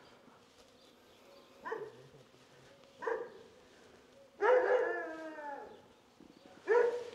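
A dog whining in short pitched calls: brief ones about two, three and seven seconds in, and a longer one about four and a half seconds in that bends and falls in pitch.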